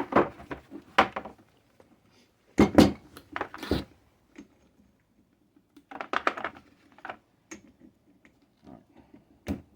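Metal tools and transmission parts clinking and knocking as a gearbox is taken apart by hand: a run of separate sharp clanks, the loudest cluster about three seconds in.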